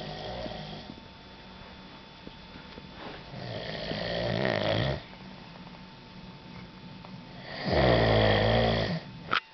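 A man snoring in a rough rhythm, one snore every four seconds or so, each building up and then cutting off, the last the loudest. A brief sharp sound comes right at the end.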